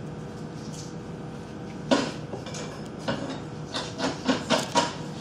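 Metal clinks and knocks from handling speed skate blades and the sharpening jig, in irregular single hits with a quick cluster of five or six near the end.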